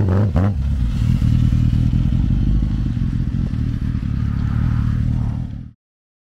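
Vehicle engine running steadily and loud, with a few clattering knocks in the first half second. It cuts off abruptly near the end.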